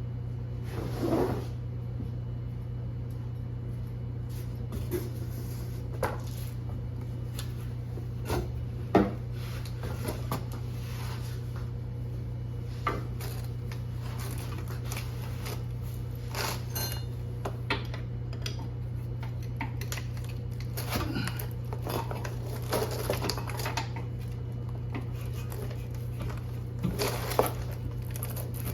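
Metal tools and parts clinking and knocking at irregular intervals during work on a car's drive axle, over a steady low hum.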